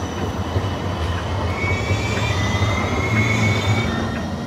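An articulated Haizhu line tram passing close by: a steady low rumble with a thin high-pitched squeal in the middle, fading as the tram moves off near the end.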